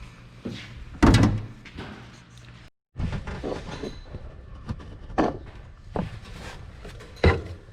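A loud thunk about a second in, followed by several lighter knocks and clunks spread through the rest, like tools and parts being set down and handled.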